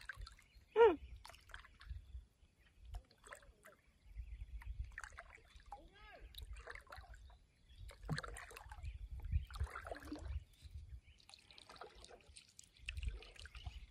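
Egret colony calling: a loud squawk falling in pitch about a second in, then scattered croaks and chatter. A low rumble and light water sounds from a small boat run underneath.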